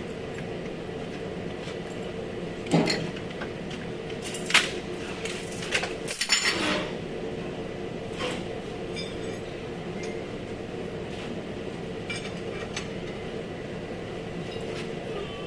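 Metal tools and car body parts clinking and clanking as they are handled: a few separate sharp knocks, the loudest about four and a half seconds in and a cluster around six to seven seconds, then a few faint ticks, over a steady hum.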